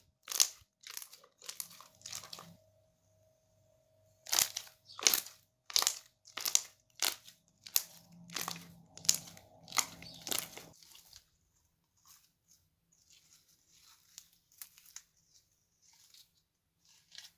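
Hand squeezing and pressing clear green slime, making wet squelching pops about one and a half a second, with a break of about two seconds. About two-thirds of the way through this gives way to faint, sparse crackles as glossy slime is stretched and folded.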